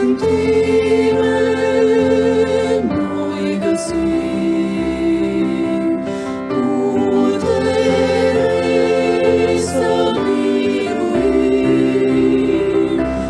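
Slow choral singing with long held notes over sustained accompaniment.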